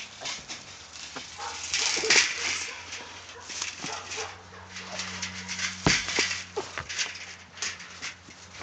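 A dog making small whimpering sounds close by, amid irregular clicks and rattles of a wire cage trap being handled, with one sharp knock about six seconds in.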